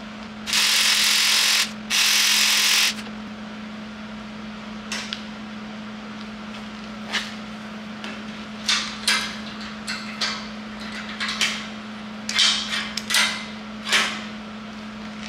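Two short MIG tack welds, each a crackling hiss of about a second, near the start. Then scattered metallic clicks and clanks as locking pliers and clamps are worked loose on the steel tube frame, over a steady low hum.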